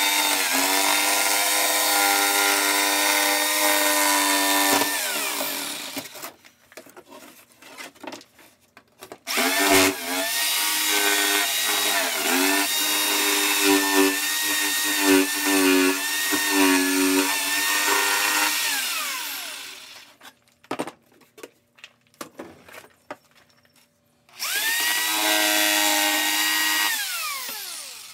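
Power tool motor running in three bursts, a long one in the middle. Its pitch dips and wavers under load, then falls away as the tool winds down after each burst.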